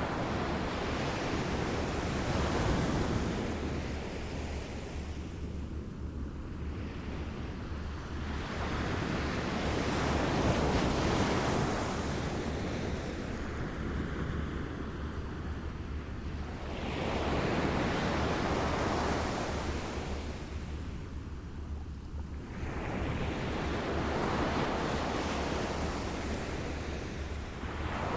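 Waves lapping on a shore, each one washing in and drawing back, swelling and fading about every six or seven seconds.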